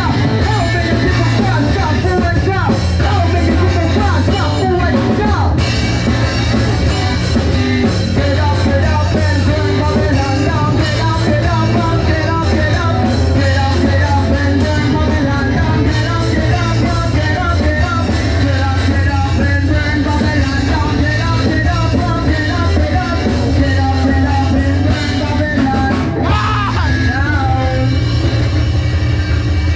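Live rock band playing loud, with a singer's vocals over electric bass and the rest of the band.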